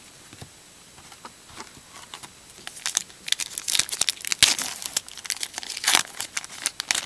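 Trading-card pack wrapper being torn open by hand and crinkling, starting about three seconds in after a few faint clicks, with the loudest crackles in the second half.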